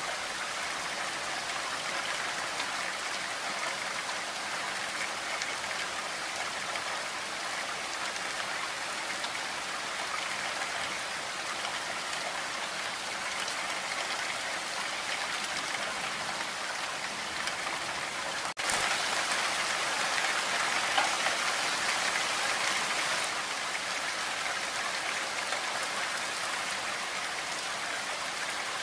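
Steady rainfall, an even dense hiss of drops. About two-thirds of the way through there is a brief dropout, after which the rain is a little louder for a few seconds.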